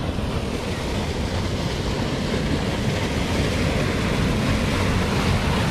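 Water surging up in a churning dome from an underwater outlet in a lake: a steady, loud rushing rumble that grows a little louder toward the end.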